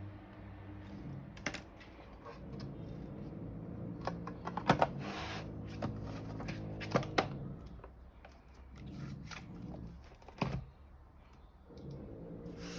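Scattered sharp clicks and taps of a plastic handheld scan tool and small parts being handled during a battery replacement, with a cluster of quick clicks about halfway through, over a low steady hum.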